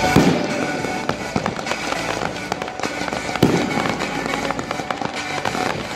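Aerial fireworks shells bursting in quick, irregular bangs with crackle, over the music of a pyromusical show. The heaviest bangs come just after the start and about three and a half seconds in.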